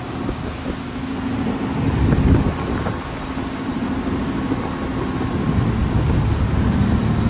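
Canal passenger boat's engine running steadily under way: a continuous low rumble mixed with rushing wind and water, swelling about two seconds in and again near the end.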